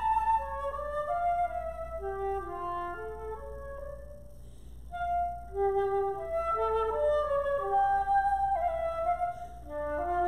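Solo woodwind instrument playing an unaccompanied melody of held, stepwise notes; it pauses briefly about four seconds in, then resumes.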